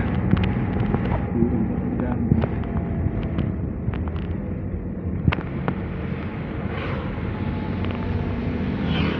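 Car driving on a wet road, heard from inside: a steady engine hum and tyre noise, with scattered small clicks and knocks.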